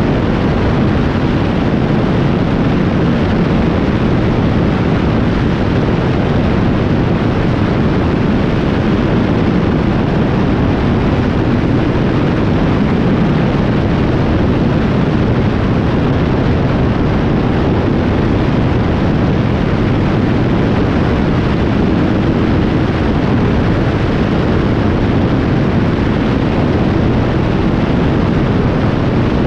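Two-seater Indy car at racing speed: engine and wind rush heard from the cockpit as one loud, steady noise with no distinct engine note and no rise or fall in level.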